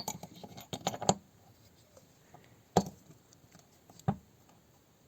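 Small metal clicks and clinks from a Niva transfer-case differential side gear and its adjusting shim being fitted and rocked back and forth in the cast-iron differential housing to check the gear's play. A quick run of clicks comes in the first second, then two single sharp clicks.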